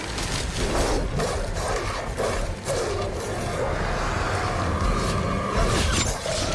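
Film sound-effects mix of a werewolf attack: a creature snarling over heavy low rumble and whooshes.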